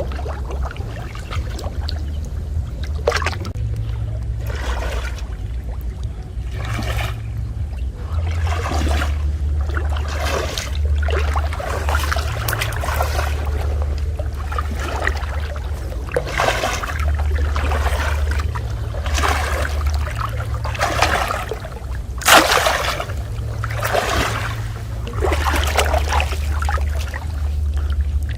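Water splashing and trickling in irregular bursts every second or two, the loudest about two-thirds of the way through, over a steady low rumble.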